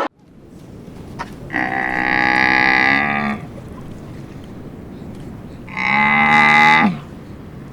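A cow mooing twice, two long calls a few seconds apart, the second dropping in pitch at its end.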